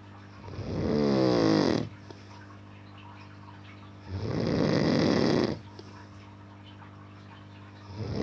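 A man snoring in deep sleep: three loud snores, each about a second and a half long and coming roughly every four seconds, the last starting near the end. A steady low hum sits between them.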